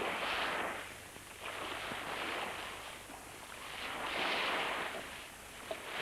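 Sea waves washing, a hiss that swells and ebbs about every two seconds.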